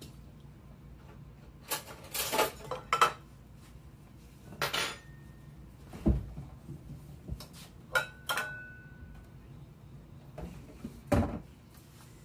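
Scattered clinks, scrapes and knocks of a metal food can against a bowl and the countertop as canned chicken is emptied into the bowl. One clink rings briefly, about eight seconds in.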